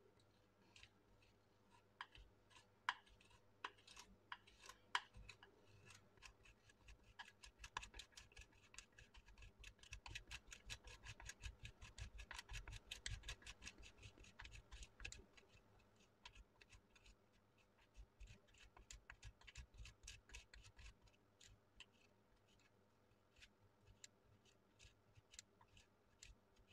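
Faint rasping of Parmesan cheese grated on a small flat metal hand grater, in quick, even strokes that grow fastest and loudest in the middle.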